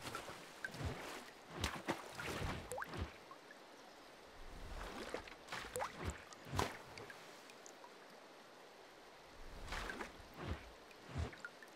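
Water sound effects: scattered drips and small splashes, with short rising plinks of droplets, coming in clusters separated by quieter gaps.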